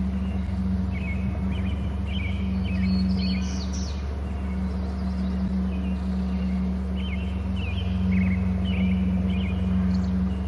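Bird chirps in two scattered runs, about a second in and again near the end, over a steady low hum.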